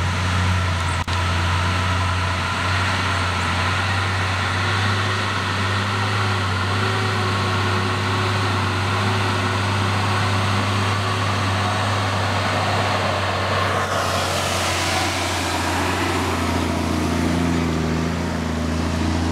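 Vehicle engine running steadily, a low drone. About fourteen seconds in, a large truck on a dirt road takes over, adding a hiss of tyre and road noise over the engine.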